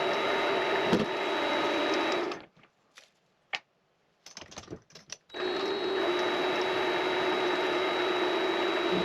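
Vevor MX400 mini lathe running steadily with a thin high whine. It stops about two seconds in, a few light metallic clicks and taps follow during the pause, and it starts up again a little past five seconds.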